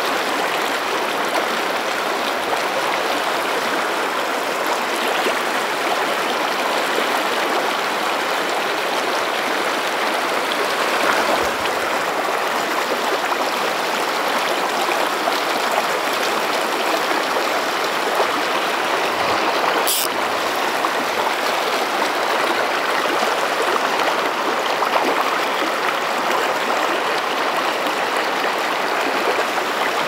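Shallow, rocky mountain river flowing over boulders and riffles: a steady rush of moving water. A single sharp click about two-thirds of the way through.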